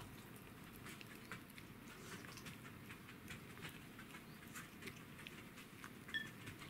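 Cat gnawing on a dried deer bone: a quick, irregular run of faint crunches and clicks of teeth on bone. A brief high squeak comes about six seconds in.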